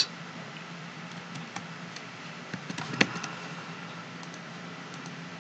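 A few faint, scattered clicks of computer keys, the sharpest about three seconds in, over a steady low hum and hiss.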